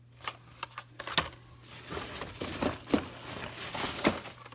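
Blister-carded Hot Wheels cars being handled and shuffled: cardboard backing cards and plastic bubbles clicking and crinkling. A few sharp clicks come first, then a denser rustle with louder taps around the three- and four-second marks.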